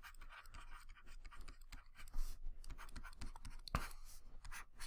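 Stylus scratching across a tablet screen while writing by hand: quick, faint strokes, with one sharp tap of the pen tip a little before four seconds in.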